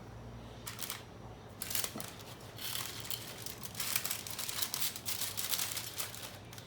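Rustling and crinkling of a thin sheet, such as wrap or paper, being handled, in uneven bursts from just under a second in until near the end.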